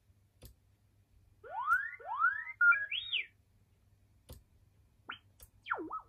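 R2-D2 droid beeps and whistles from a small speaker, one of the 'positive' sounds fired from a remote-control transmitter switch. After about a second of quiet come two rising whistles and a warbling run of chirps. Then a few faint clicks and short chirps follow, with a falling-then-rising whistle near the end.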